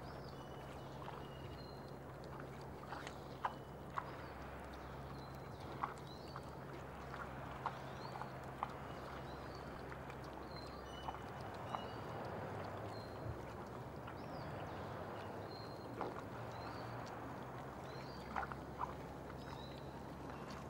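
Wild boar piglets rooting and moving about in forest litter: scattered sharp snaps and crackles of twigs and leaves. Small birds chirp in short high notes throughout, over a steady low hum.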